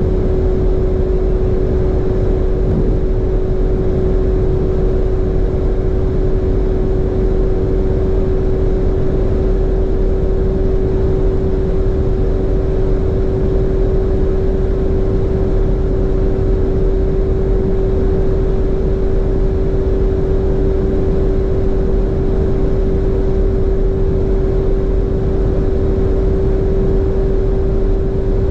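Lamborghini Urus's twin-turbo V8 with a Novitec exhaust, pulling flat out in seventh gear at over 315 km/h, still gaining speed slowly near its top speed. Heard from inside the cabin as one steady engine tone over a dense, unchanging rush of noise.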